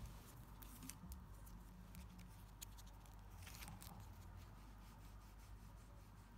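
Near silence with faint scattered clicks and light rustles as hands handle small plastic toys and a spiral-bound paper notepad.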